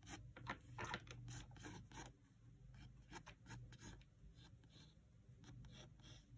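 Pencil sketching on paper: faint, short scratchy strokes, several a second and irregular, fading a little after about two seconds.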